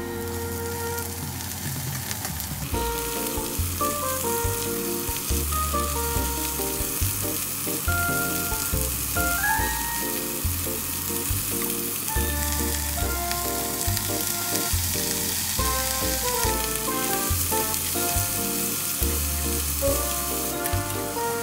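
Onion, whole shrimp and chayote strips sizzling in oil in a nonstick frying pan as they are stirred, the sizzle getting stronger partway through. Background music plays with it.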